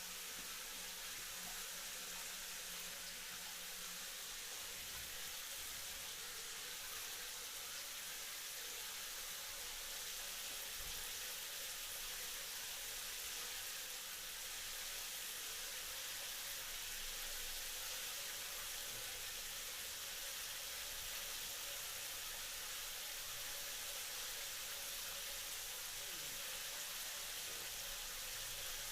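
Shower running steadily: water spraying from the showerhead in an even hiss.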